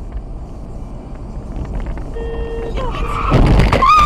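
Road and engine noise inside a moving car, growing louder; about two seconds in a car horn sounds briefly, then near the end comes a loud rough burst with a wavering squeal as the car swerves toward a crash.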